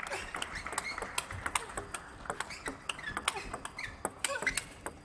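Table tennis rally: the ball clicking off the rackets and the table in quick, irregular succession, with short squeaks of shoes on the court floor.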